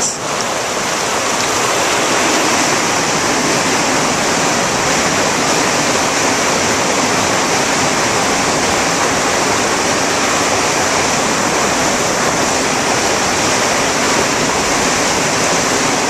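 Creek whitewater rushing and spilling through a narrow tunnel under the rocks, heard up close: a steady, loud rush of water.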